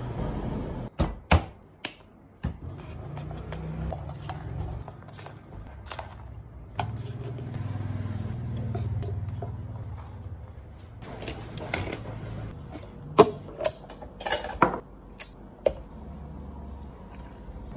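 Plastic and paper drink cups handled on a wooden counter: a series of sharp taps and clinks, a few near the start and a cluster about three-quarters of the way through, over a low hum.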